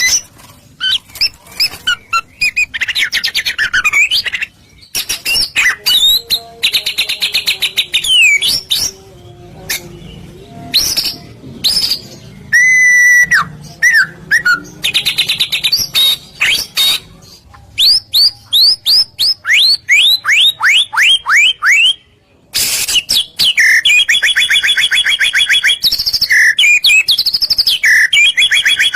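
White-rumped shama (murai batu) in full song: loud, varied phrases of rapid trills, clear whistles and quick runs of repeated sweeping notes, separated by short pauses.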